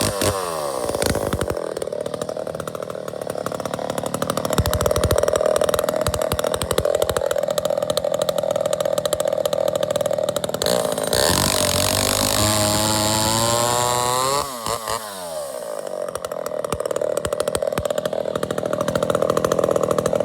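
Allis-Chalmers 195 chainsaw (a rebranded Poulan 306A) with its two-stroke engine running at high throttle. The revs dip and climb back twice, then fall toward idle about three-quarters of the way through and rev up again near the end.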